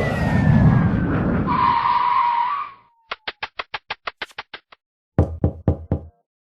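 A string of short sound effects: a noisy rush with a whistle sliding down in pitch into a brief steady tone, then a rapid run of about a dozen sharp clicks, then a quick series of about six knocks.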